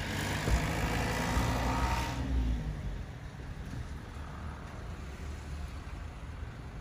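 A motor vehicle passes close by, loudest in the first two and a half seconds and then fading, leaving a steady low engine or traffic rumble.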